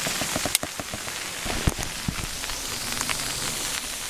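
Rain falling on the nylon fabric of a pop-up tent, heard from inside: a steady hiss of drops with scattered small ticks, and a couple of sharper knocks in the first two seconds.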